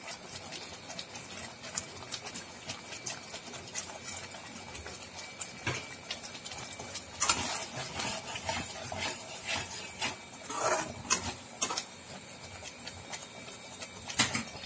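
Thick tomato gravy simmering in a kadai, with small bubbles popping. From about seven seconds in, a spoon stirs paneer cubes through the gravy and scrapes against the pan in short strokes.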